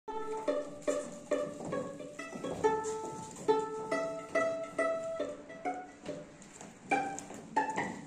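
Folk dance tune played on a string instrument: crisp single notes, each ringing on briefly, about two to three a second.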